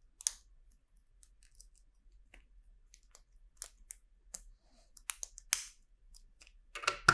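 Light, scattered clicks and rustles of small plastic LEGO pieces being handled and pressed together, with a sharper click about a third of a second in and another about five and a half seconds in.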